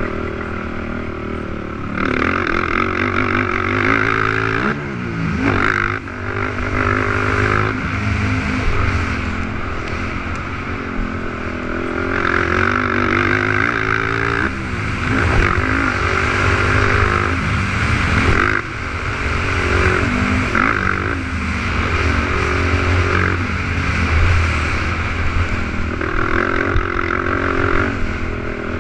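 450cc racing quad engines revving hard and backing off over and over as they race around a motocross track, rising and falling in pitch every few seconds.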